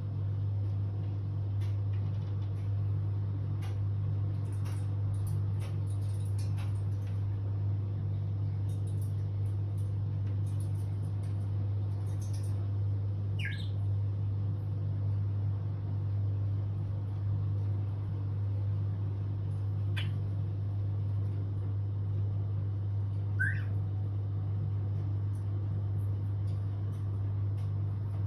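African grey parrot giving a few short whistles, one sliding down in pitch about halfway through, with scattered small clicks, over a steady low hum.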